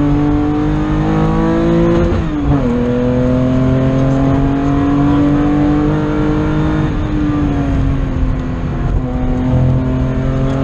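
Race car engine heard from inside the cockpit, accelerating hard with the pitch climbing, a sharp drop at an upshift about two seconds in, then climbing again before easing off around seven seconds in and running steadier.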